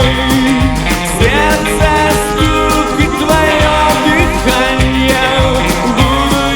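A country rock-and-roll song playing: a full band with guitar over a steady drum beat.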